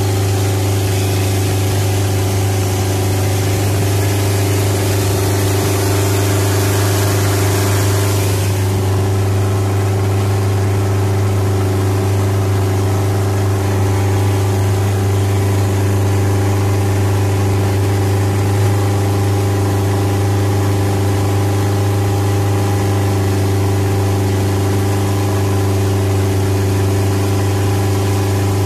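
Boat engine running steadily at cruising speed, a constant drone. A loud rushing hiss over it drops away suddenly about eight seconds in.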